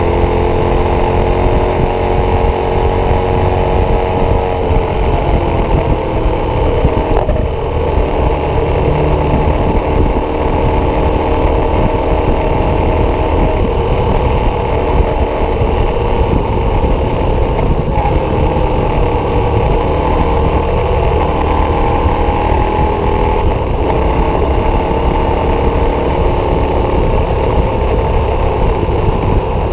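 KTM 1190 Adventure's V-twin engine, fitted with an aftermarket Wings exhaust, running steadily at cruising speed of about 100–120 km/h, heard from on the bike. The engine note eases down about five seconds in as the speed drops a little.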